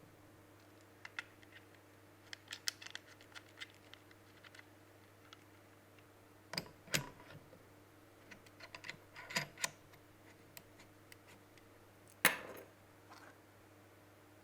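Scattered small clicks and taps of camera rig parts being handled and fitted together, with two sharper knocks, about seven and twelve seconds in, over a faint steady hum.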